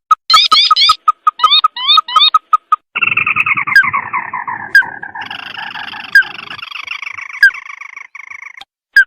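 Crake calls from a bird-lure recording. A quick run of short, sharp repeated notes gives way about three seconds in to a long chattering trill that falls slowly in pitch and lasts about five seconds.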